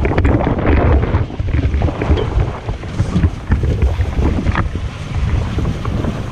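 Wind buffeting the microphone on a small centre-console boat at sea, with water sloshing along the hull and a few scattered knocks.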